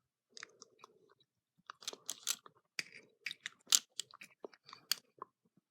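Knives being handled and moved around by hand: irregular clicks, knocks and rattles of metal and plastic, with the sharpest click a little under four seconds in.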